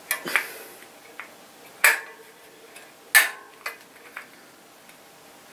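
Spoke key working on the spokes of a mountain bike wheel as loose spokes are tightened: about five sharp metallic clicks and pings, the loudest about three seconds in with a brief ring from the struck spoke.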